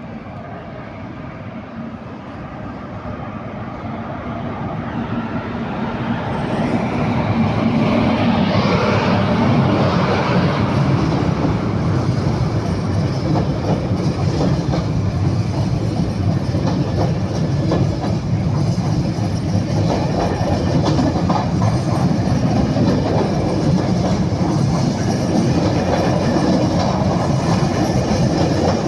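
Intercidades passenger train running past: its rumble grows over the first several seconds, then holds as a steady loud rumble with the clatter of wheels on the rails.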